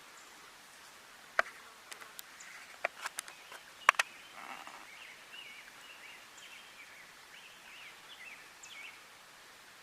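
A handful of sharp clicks or snaps in quick succession, followed by faint, rapid chirping from small birds in the woods.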